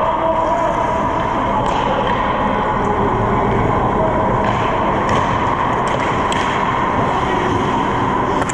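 Ice hockey rink ambience during play: a steady noisy hum with a few faint, sharp clicks.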